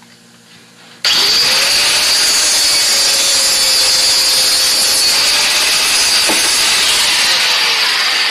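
Handheld power tool cutting a fuel-gauge sending unit to length: it starts suddenly about a second in with a rising whine, runs steadily at a high pitch, and winds down near the end.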